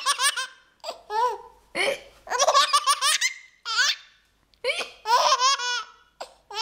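A young child laughing in a string of high-pitched bursts, about six or seven, with short sharp hiccups breaking in between them.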